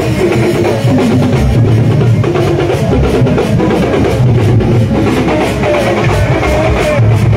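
Procession drum troupe beating large shoulder-slung drums with sticks in a loud, steady beat, with a melody line playing over the drumming.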